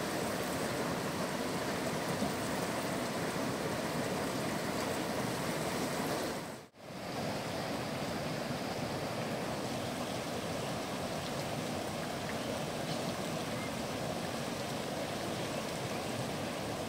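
Steady rushing outdoor noise, even throughout, with a brief dropout about seven seconds in where the sound cuts and resumes.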